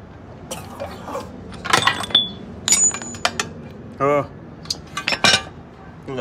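Steel car parts and hand tools clinking and clanking as a steering knuckle, wheel bearings and tools are handled on a workshop floor: a run of sharp metallic knocks, some ringing briefly. A short voice-like call about two-thirds of the way through.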